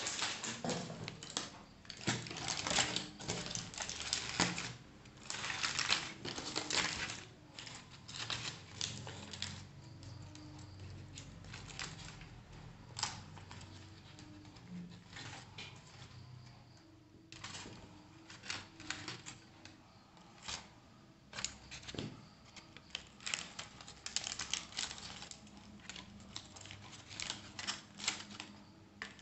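Aluminium foil crinkling and crackling as hands pull open a foil packet and the banana leaves inside it. It comes in irregular bursts of rustle, busiest in the first several seconds and again near the end.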